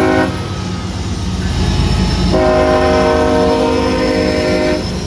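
Diesel locomotive air horn on a loaded CSX coal train: one blast that cuts off just after the start, then a long steady blast of about two and a half seconds. Under it is the heavy rumble of the passing locomotives, working at full throttle in Notch 8 on the climb to the summit.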